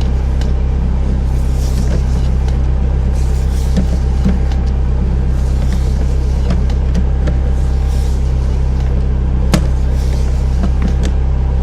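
Sewer jetter's engine running steadily with a low hum. Faint hissing swells come about every two seconds, with a few light clicks.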